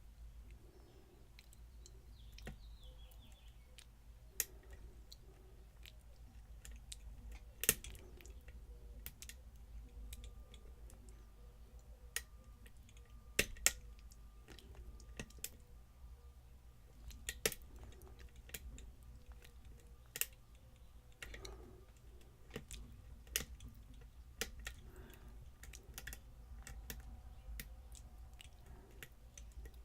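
A lock pick and tension wrench working the pins inside a challenge lock: irregular small metallic clicks and ticks, some sharper and louder than others, as pins are lifted and set.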